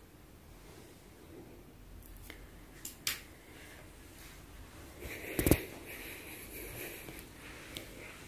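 Quiet room tone broken by a few short knocks: two light clicks about three seconds in and one sharp, loud knock about five and a half seconds in.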